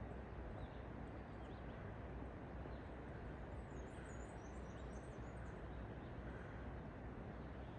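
A small songbird gives a short, high, quick twittering phrase from about three and a half to five seconds in, over a steady low rushing background.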